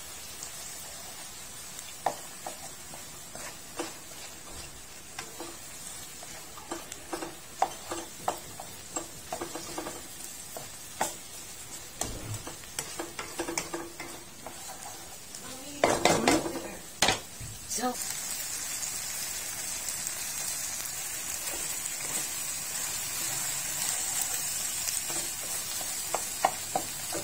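Tomatoes, peppers and onions frying in a nonstick pan with a steady sizzle, while a plastic spatula stirs and scrapes them with scattered clicks and taps. A brief louder clatter comes about sixteen seconds in, and after it the sizzle grows louder.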